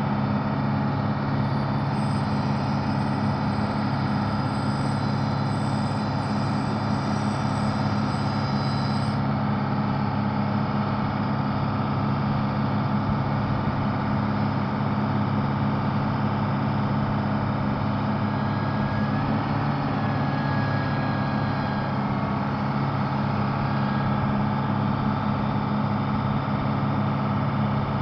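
A fire truck's Detroit Diesel six-cylinder diesel engine idling steadily. A faint high whine sits over it for the first several seconds, then stops.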